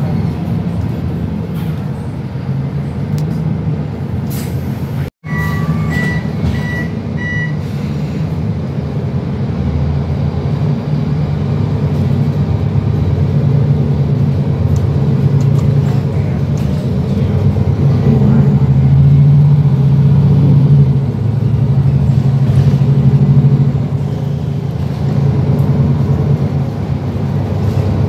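Inside the cabin of a MAN NL323F diesel city bus pulling away and accelerating, with steady engine and road noise. The engine grows louder through the middle, eases off about two-thirds of the way through, builds again and eases once more. A few short electronic beeps sound about six seconds in.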